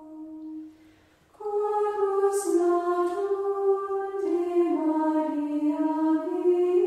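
Women's choir singing a slow, sustained sacred melody in long held notes. A held note fades out about a second in, and after a short pause a new phrase begins.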